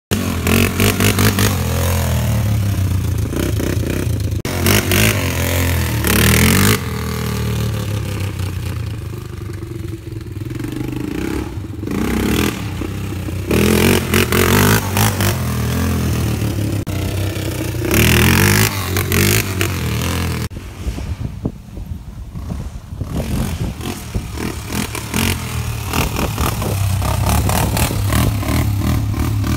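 Honda 400EX ATV's single-cylinder four-stroke engine revving hard and easing off again and again as it is ridden in wheelies. A few short, loud rushing bursts ride over it, and the sound changes abruptly about two-thirds of the way through.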